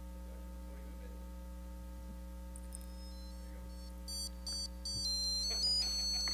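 Steady electrical hum from the room's sound system, joined about four seconds in by a quick run of short, high-pitched electronic beeps that step up and down in pitch like a little tune.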